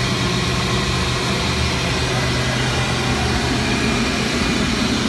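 Steady, loud machinery drone of a ship's engine room, with a centrifugal heavy fuel oil purifier running close by: a constant low hum under an even rush of noise.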